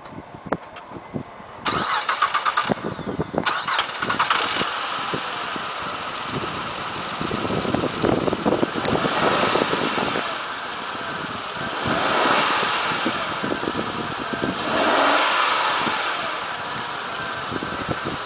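2007 Honda Odyssey's 3.5-litre V6 being started: the starter cranks about two seconds in, the engine catches a second or so later and then runs, with a few swells in level.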